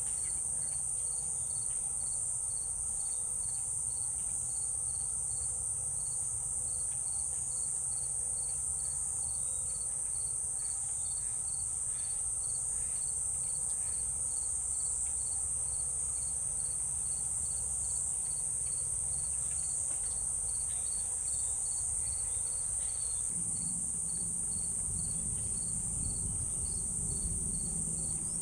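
Steady high-pitched insect chorus, with a second insect chirping at an even pulse of about two to three chirps a second beneath it.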